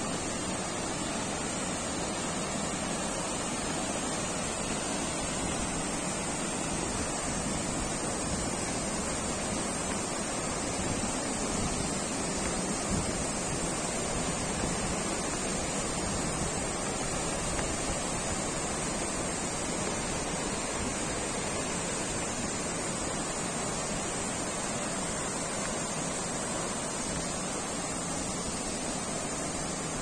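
Steady, even rush of a waterfall and the rocky mountain stream below it, running water tumbling over boulders.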